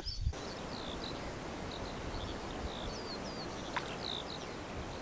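Small birds chirping and giving short whistles again and again over a steady outdoor hiss, with one brief click just before four seconds in.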